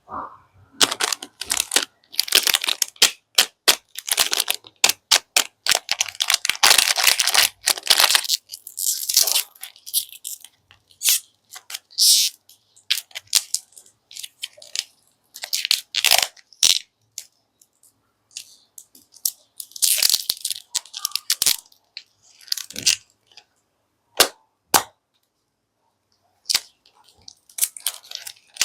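Plastic candy wrappers crinkling and crackling as sweets are unwrapped and handled: a dense run of sharp crackles for the first eight or so seconds, then sparser clusters of crinkles with short pauses.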